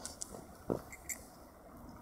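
Low, uneven rumble on the microphone, with a few faint clicks and one sharper thump a little under a second in.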